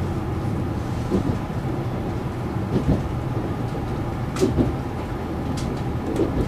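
KiHa 187 diesel railcar running at speed, heard from the front of the train: a steady low rumble of the diesel engine and wheels on the rails, with a couple of short clicks about four and a half seconds in.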